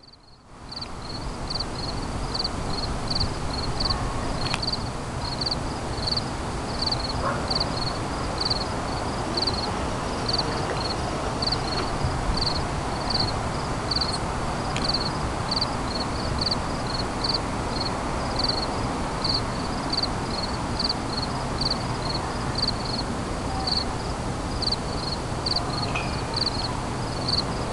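Night insects chirping in a steady, even rhythm of about two high chirps a second, over a steady low rumble.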